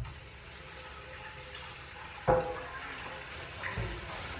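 Steady hiss of vegetables cooking in a covered steel wok over a high gas flame, the water in the pan boiling off. One sharp metallic clink rings out about halfway through.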